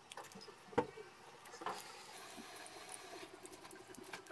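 Thin aluminium foil shielding crinkling and rustling as it is peeled off a 2.5-inch hard drive by hand, with many small crackles and one sharper click a little under a second in.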